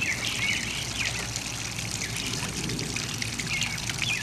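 Steady trickle of water from a small rock-edged garden pond.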